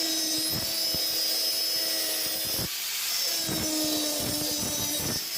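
Small electric power tool running under load on a workpiece, with scattered knocks as it bites. It stops for about half a second a little before halfway through, then starts again.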